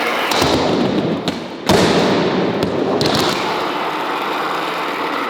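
All-metal CNC-cut skateboard rolling on concrete with a loud, steady rumbling roar, broken by sharp clacks of the board striking, the hardest about a second and a half in.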